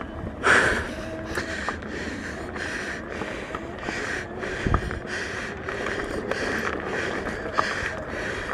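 A person's heavy, rapid breathing, about two breaths a second, typical of panting after a hard effort on a mountain bike. There is a louder puff about half a second in and a dull thump near the middle.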